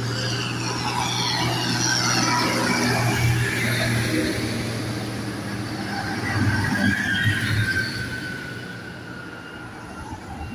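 Large tractors driving past on the road, diesel engines running under load with tyre noise and a high whine. The sound swells as each approaches and is loudest about six to seven seconds in as one passes close, its whine falling in pitch as it goes by, then fading.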